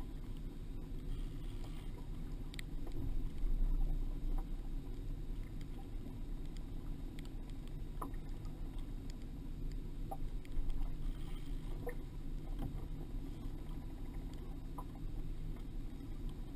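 Steady low rumble on a small fishing boat out on choppy water, with a few faint scattered clicks.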